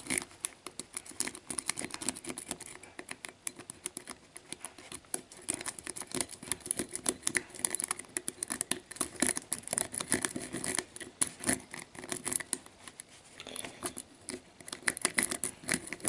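Steel lock pick worked in the keyway of an ERA IP-70DIS-PC discus padlock's four-pin cylinder, making a quick, irregular run of small metal clicks and scrapes as the pins are moved. The pins felt serrated to the picker, and these security pins resist raking.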